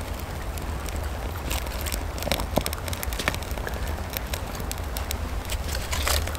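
Small fire of split kindling and wood shavings crackling with irregular sharp snaps as dry shavings are laid on by hand, with a brief rustle near the end. A steady low rumble runs underneath.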